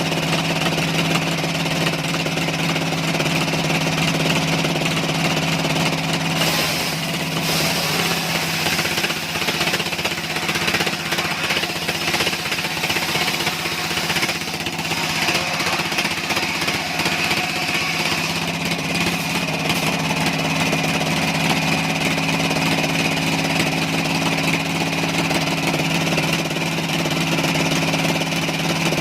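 Engine-driven sawmill machinery running steadily with a constant hum. From about six seconds in to about twenty, the even hum turns rough and uneven with crackling, then settles back to the steady running sound.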